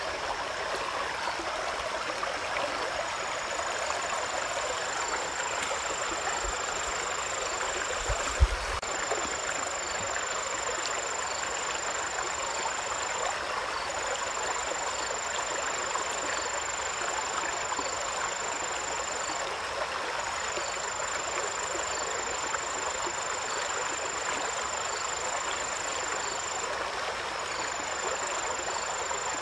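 Steady rush of flowing stream water. A thin high-pitched whine drops out and comes back every few seconds over it, and there is one soft low thump about eight seconds in.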